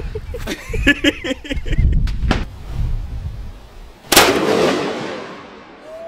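A single shot from a .45-70 derringer, fired about four seconds in, followed by a long echo that fades over about two seconds.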